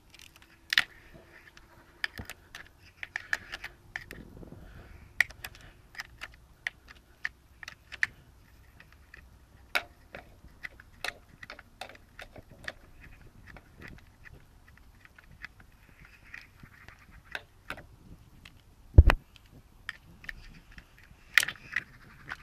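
Hand ratchet clicking in short, irregular runs as a bolt is worked loose, with one heavier knock near the end.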